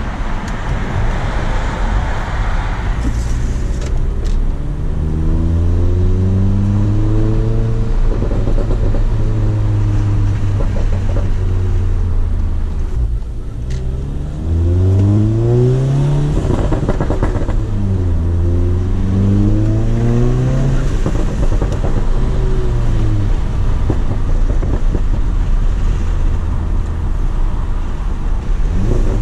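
VW Mk7 GTI's 2.0-litre turbocharged four-cylinder, APR Stage 2 tuned with a CTS downpipe, pulling through the gears of its six-speed manual. The engine note climbs, dips at a gear change about halfway in, then rises and falls twice more before settling into a steady cruising drone for the last several seconds.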